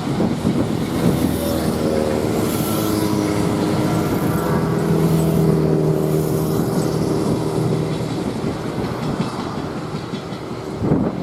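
Steam-hauled passenger train of 12 series coaches rolling past close by: a steady rumble of wheels on rail, with a humming tone that comes in about a second and a half in, sinks slightly in pitch and fades away after the middle.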